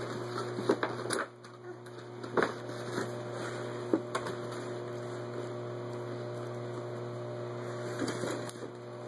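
Cardboard shoebox and its paper being handled and opened, with a few short clicks and crackles scattered through, most of them in the first few seconds. A steady low hum runs underneath.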